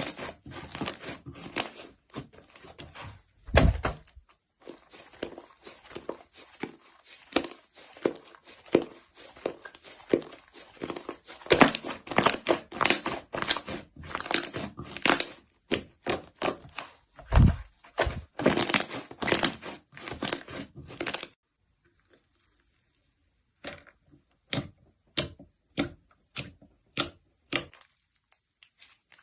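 Slime being squeezed and pressed by hand, giving a dense run of crackles and pops. After a brief pause about two-thirds of the way through, separate clicks follow at about two a second.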